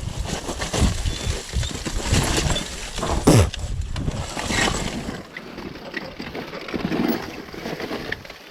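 Dirt bike riding down a rocky, flood-washed trail: a steady rush of noise with many knocks and clatters from the tyres and suspension hitting loose rocks. A brief sound falls in pitch about three seconds in.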